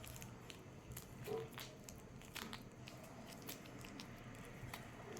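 Faint, scattered crinkling and small squishy clicks of hands pressing sponge and slime filling down into a homemade squishy toy.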